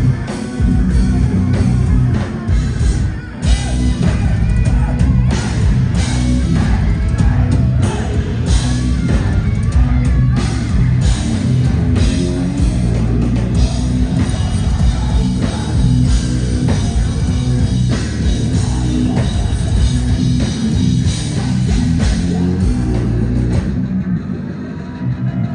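Heavy metal band playing live: distorted electric guitars, bass and pounding drum kit at concert volume, with occasional vocals, recorded from within the audience.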